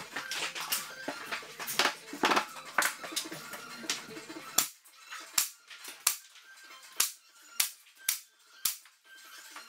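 Pneumatic nail gun firing nails into shiplap boards: a run of sharp single shots, roughly one a second. Background music plays under the first half and drops out about halfway through, leaving the shots on their own.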